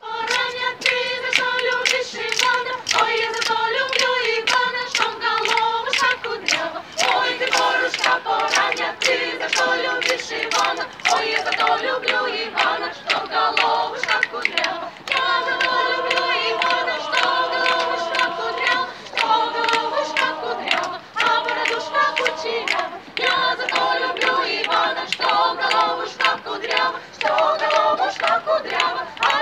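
Russian folk choir of women and girls singing a folk song a cappella, with sharp hand claps keeping time at about two a second.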